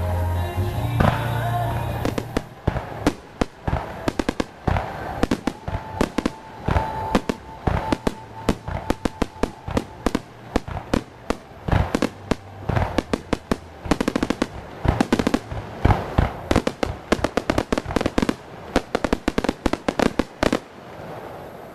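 Fireworks going off in a fast, dense barrage of sharp bangs, several a second, that stops abruptly near the end, over background music.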